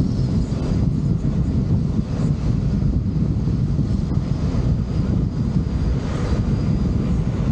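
Steady low rumble of a vehicle travelling along a road, with wind buffeting the microphone.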